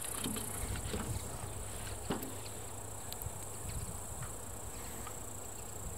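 Field insects chirring steadily in a high, continuous hiss, with a few faint clicks and knocks as parts of a radio-controlled model airplane are taken off and handled.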